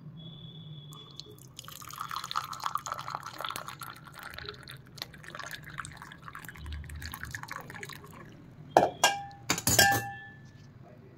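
Hot masala chai poured from a saucepan into a ceramic cup, splashing and frothing for several seconds. Near the end come two sharp ringing clinks, the loudest sounds.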